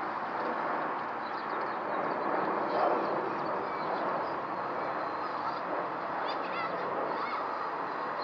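Airbus A320-214's CFM56 jet engines heard from the ground as a steady, broad rumble while the airliner passes overhead on approach.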